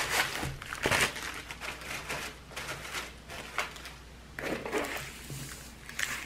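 Plastic wrapping and a paper sleeve around a rolled diamond-painting canvas crinkling and rustling as they are handled and opened, in irregular bursts.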